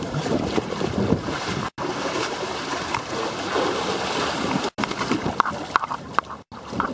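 Water splashing and sloshing close to the microphone, with rubbing and handling noise against the raft.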